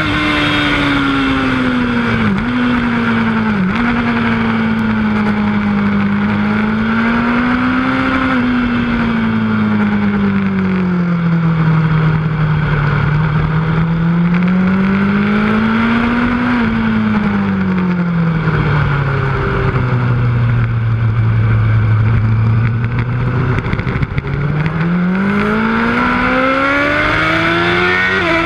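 Yamaha R1 sportbike's inline-four engine heard onboard at track pace, its pitch climbing on the straights and dropping away into the corners several times, lowest in a long slow stretch about three-quarters of the way through before it pulls hard again. Two quick dips in pitch two to four seconds in are typical of upshifts. Wind rush runs under the engine throughout.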